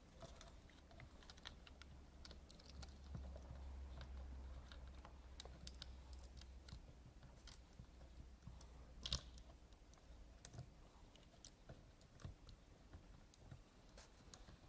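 Very quiet handling of small laptop parts: faint scattered clicks and taps of tiny screws and a screwdriver as the replacement screen panel is screwed back into the lid, with one sharper click about nine seconds in.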